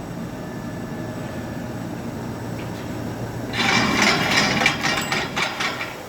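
Fabric inspection machine running with a steady hum; about three and a half seconds in, a loud burst of irregular rattling and clicking lasts about two and a half seconds, then stops.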